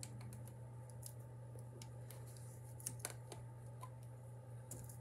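A few faint, scattered small clicks and handling sounds over a steady low hum.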